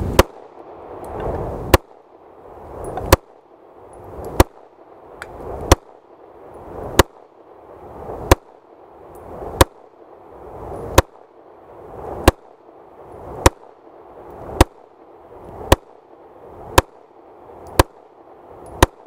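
Beretta APX 9mm striker-fired pistol fired at a slow, even pace, about sixteen shots a little over a second apart. A hiss swells up between the shots.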